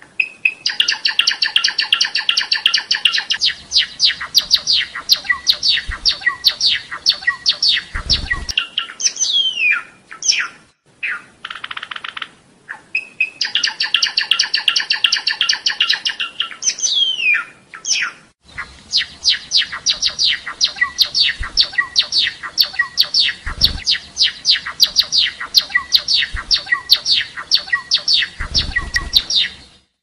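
Java sparrow singing: long runs of rapid clicking, chattering notes, twice broken by a drawn-out falling whistle. A few low thumps come through under the song.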